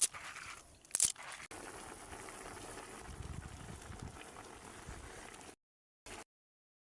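Wet bitter leaves being squeezed and rubbed together by hand in water. Two sharp crackles come at the start and about a second in, then a steady squelching rustle that cuts off suddenly after about five and a half seconds.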